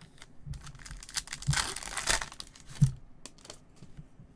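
A 2021 Panini Select baseball card pack wrapper being torn open and crinkled, a dense crackle lasting about a second and a half. A short soft thump follows near the end.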